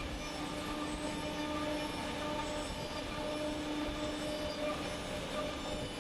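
Horizontal CNC boring machine running, a steady machine whine over a wash of mechanical noise.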